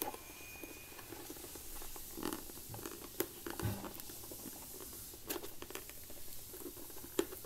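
Fingers scratching, picking and tapping at a small cardboard product box, with a few scattered light clicks, while the box refuses to open.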